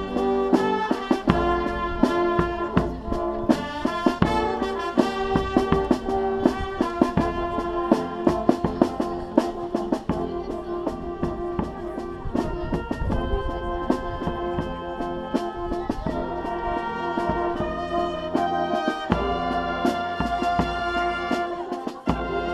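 Brass band playing outdoors: trumpets, trombones and sousaphone holding sustained chords over a steady bass-drum beat.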